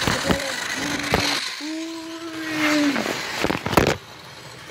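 Handling knocks and clatter of plastic toy trains being pushed around a layout, with a steady held tone lasting about a second and a half in the middle, and a quick cluster of knocks near the end.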